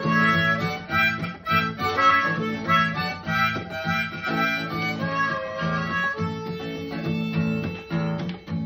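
Harmonica played with cupped hands, a rhythmic run of chords with a pulsing low part and bending upper notes. Near the end a pedal steel guitar comes in.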